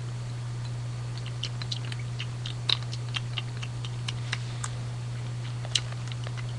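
Irregular light plastic clicks and taps, several a second, as a toy pet figure is bobbed against a small plastic food bowl in pretend eating, over a steady low hum.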